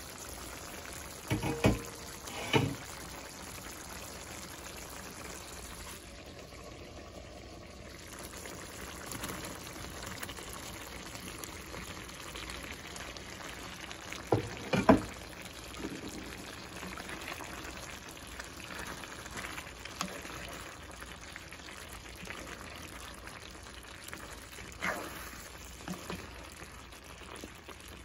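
Pork afritada sauce simmering in a skillet, bubbling steadily, with a few sharp clattering knocks against the pan, the loudest about halfway through when carrots and potatoes go in.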